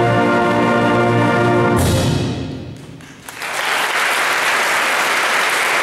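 Symphonic band holding its final chord, with brass prominent, cut off about two seconds in; the hall rings briefly as it dies away, then the audience breaks into steady applause.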